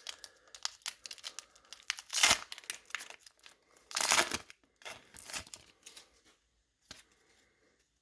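A Pokémon booster pack's foil wrapper being torn open and crinkled by hand, with the loudest tears about two and four seconds in.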